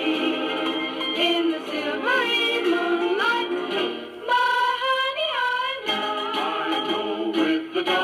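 Philco TPA-1 all-transistor record player playing a 45 rpm record through its small built-in speaker: a song with a singing voice, thin and with little treble.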